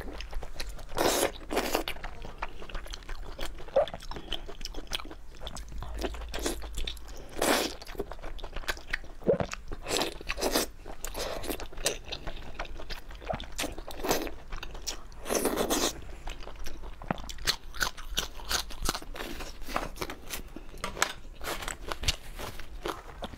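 Biting and chewing braised intestine rolls pulled from skewers, close to the microphone, with irregular chewing sounds and a few louder bites.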